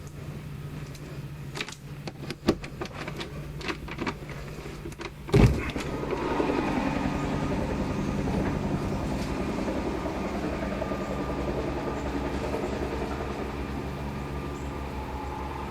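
A few clicks and knocks, then a loud thump about five seconds in. After the thump an engine starts and runs steadily.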